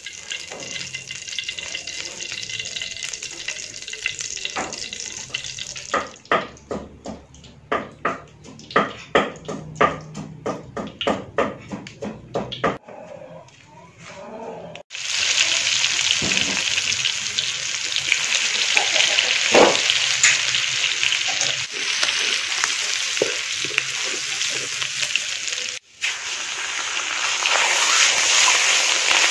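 Oil heating in a steel wok, with a faint sizzle, then a run of short knocks, about three a second. About halfway, food goes into the hot oil and a loud, steady frying sizzle takes over as minced meat is stir-fried in it.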